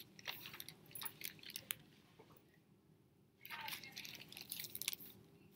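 Faint handling of a hardcover picture book: scattered light taps and clicks, then a crackly rustle of paper pages being flipped over from about three and a half seconds in.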